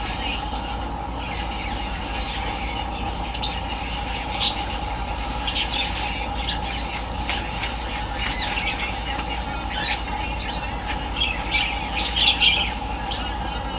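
Birds chirping and squawking in short, irregular calls, more often in the second half, over a steady hum.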